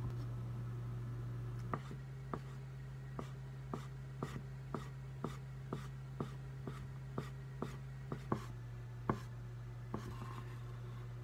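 Kitchen knife julienning a thin egg-yolk sheet on a wooden cutting board: sharp knocks of the blade on the board, about two a second, starting about two seconds in and stopping about nine seconds in. A steady low hum runs underneath.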